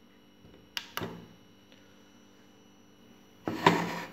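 Two light clicks of a finger on the plastic front panel of a thermal receipt printer about a second in, then, near the end, a louder scraping rub as a hand grips the printer's plastic paper cover.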